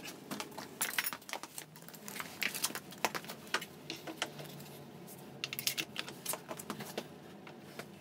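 Sharp metallic clinks and rattles of steel bolts and hand tools being handled and set down on a concrete floor, coming in several clusters of quick clicks.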